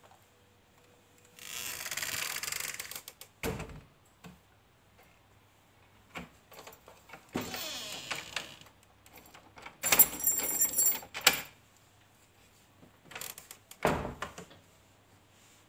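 Velvet cloth rustling as a blouse hem is folded, pressed and smoothed flat by hand on a wooden work board. There are two dull thumps, and about ten seconds in a short metallic clinking clatter.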